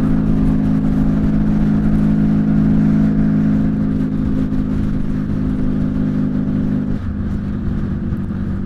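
Honda Valkyrie's flat-six engine through six-into-six Cobra exhaust pipes, running steadily under way as heard from a helmet-mounted mic; about seven seconds in the engine note drops as the throttle eases.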